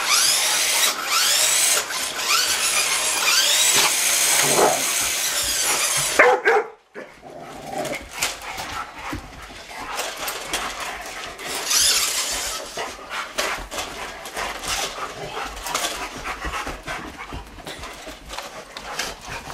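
Small electric motor of a remote control truck whining as it revs up and down, cutting off abruptly about six seconds in. A second short burst of revving comes around twelve seconds. In between and after are a dog's scuffling and clicking noises.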